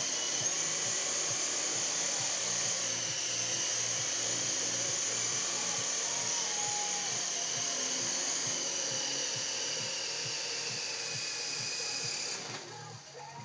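Syma S031G coaxial RC helicopter's small electric motors and rotors running with a steady high whine. The pitch sinks slightly before the motors cut out near the end.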